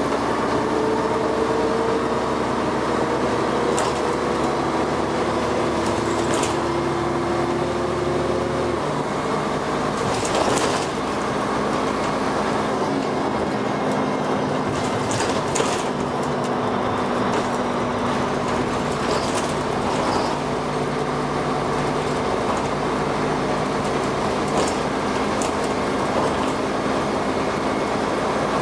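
Dennis Arrow double-decker bus under way, its engine and ZF gearbox pulling. The pitch rises for the first nine seconds, then drops at a gear change. Occasional sharp knocks and rattles come through.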